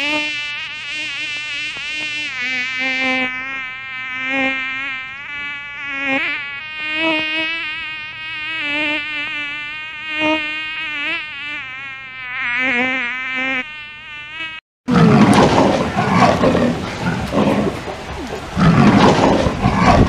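Mosquito wing whine: a buzzing tone that wavers up and down in pitch, swelling and fading. About fifteen seconds in it cuts off, and after a moment of silence a louder rushing noise takes over.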